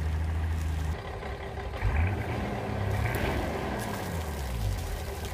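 Nissan LD28 marinized straight-six diesel running at idle during a test run on land. About a second in, the sound changes abruptly from a steady low hum to a rougher engine note with a wavering pitch, heard at the exhaust outlet at the stern.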